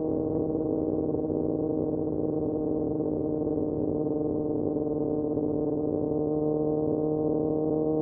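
Kawasaki ZX6R inline-four engine through an M4 exhaust without its dB killer, running at a steady engine speed as a constant drone that holds one pitch without revving.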